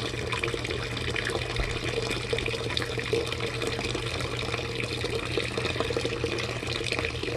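Vinegar solution draining from a hot water heater's drain hose, running steadily into a bucket as the tank is emptied after its vinegar soak.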